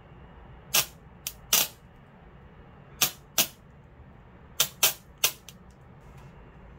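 Sharp electric snaps of a homemade spot welder's probe electrodes arcing as a used supercapacitor bank discharges through them. There are about eight snaps in three quick groups.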